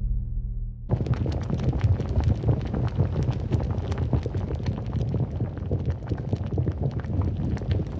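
Rocket engine sound effect: a low rumble with dense crackling that starts abruptly about a second in and runs on steadily.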